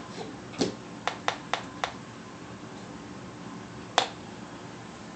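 Sharp clicks: one just after the start, four quick ones about a second in, and a single loud one about four seconds in.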